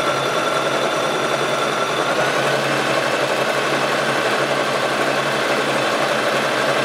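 Brother BM2800 sewing machine running steadily, stitching a straight gathering seam with the upper thread held back by hand. Its motor whine steps up a little in pitch about two seconds in.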